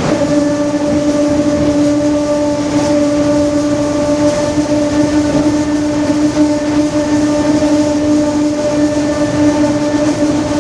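Differential of a Mercedes-Benz OF-1721 BlueTec 5 bus droning very loudly at a steady pitch, over a constant noisy rumble.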